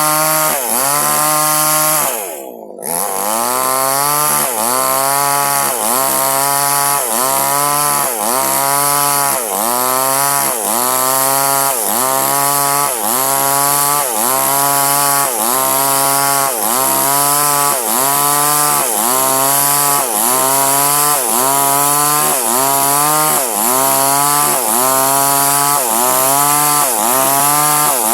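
Small two-stroke chainsaw cutting through durian wood under load. Its engine pitch dips and recovers in a steady rhythm about once a second as the bar bites into the wood, with a brief easing of the throttle about two and a half seconds in.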